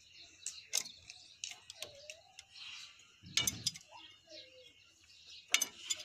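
An adjustable wrench working a bolt on a tractor's steel front-end fittings: scattered sharp metal clicks and clinks, the loudest a heavier knock about three and a half seconds in.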